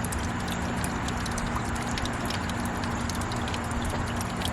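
Water jet from a 2.5 W solar fountain pump's bullet nozzle falling back into a plastic basin: steady splashing with many small, quick droplet ticks.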